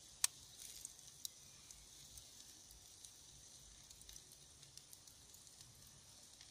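Meat skewers sizzling faintly over wood embers, with scattered pops and crackles from the fire, one sharp crack near the start.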